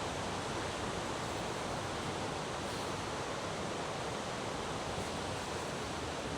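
Steady rush of water from a mountain river's cascades, an even, unbroken hiss.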